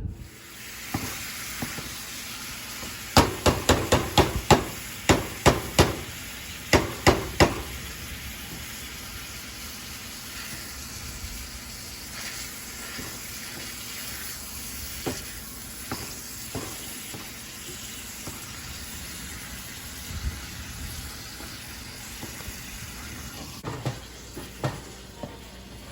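Meat masher knocking and scraping against a pan of ground meat, with a run of about a dozen quick, sharp knocks a few seconds in and a few scattered ones later. A steady sizzle of the meat frying runs underneath.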